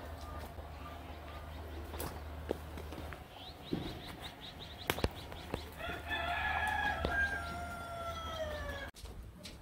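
A rooster crowing once: one long call starting about six seconds in, falling in pitch as it ends.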